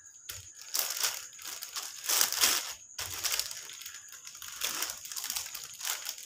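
Clear plastic sheet crinkling and rustling under a wooden rolling pin as dough is rolled out between the sheets, in repeated back-and-forth strokes.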